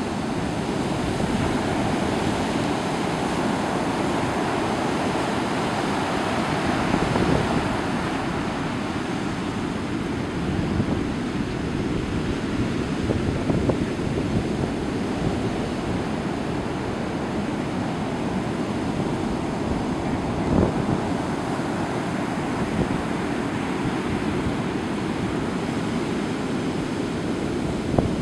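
Heavy storm surf from a hurricane swell breaking on the beach and around a rock jetty: a steady, continuous wash of breaking waves, with wind buffeting the microphone.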